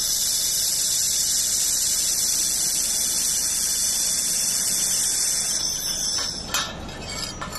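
Fiber laser welding machine running a weld: a steady high-pitched hiss that cuts off about six seconds in, followed by a couple of short clicks.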